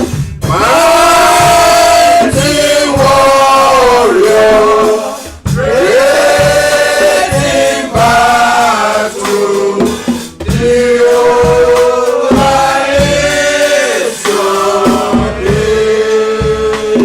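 Live gospel worship music: a male lead and choir singing long held notes over a band with a steady drum beat.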